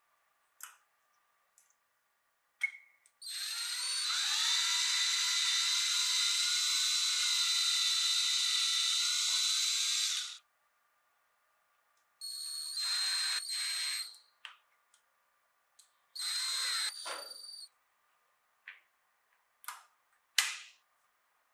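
A power drill runs steadily for about seven seconds, boring a hole into a wooden board, then runs in two shorter spurts a few seconds apart, the last one winding down in pitch. Sharp little clicks of the metal binder clip being handled and snapped come before and after.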